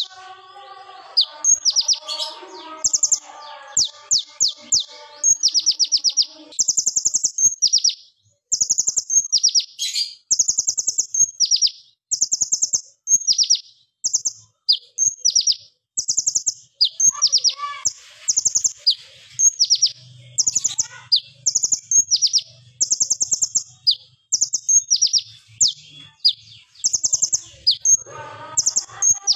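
Male kolibri ninja (konin) sunbird singing: a long run of short, rapid, high trills fired off one after another with brief gaps, the sharp, piercing rapid-fire song that keepers call 'AK47 shots'.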